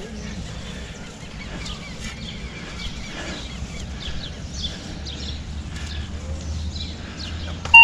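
Birds chirping over a low, steady rumble. Near the end comes a single short, loud electronic beep from a metal detector.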